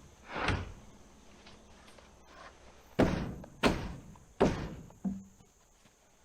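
Wooden 2x boards being handled and set down: a softer scrape early, then three sharp wooden thunks about two-thirds of a second apart and a lighter knock after them.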